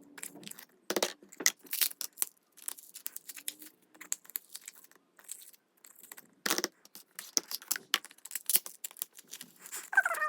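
Foam slime being handled and pulled out of plastic containers: irregular clicks and crackling with a few sharper pops.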